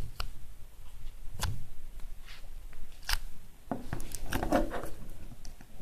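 Crunchy pearl-bead slime being squeezed and kneaded in a small plastic tub, giving scattered crackling pops, with several close together about four seconds in.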